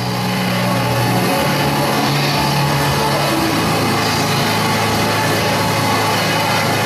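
Live experimental electronic music from a laptop and an electric guitar: a loud, dense wall of noise over a low sustained drone that steps to a new pitch every second or so.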